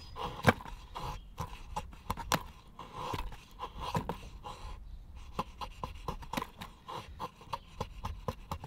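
Blade of a TOPS CUMA Kage short sword shaving thin curls off a fatwood stick, with a quick, irregular run of sharp ticks and scrapes as the edge cuts through and strikes the wooden board beneath.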